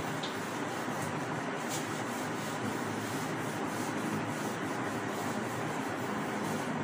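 Whiteboard being wiped clean with an eraser: a continuous run of repeated rubbing strokes across the board.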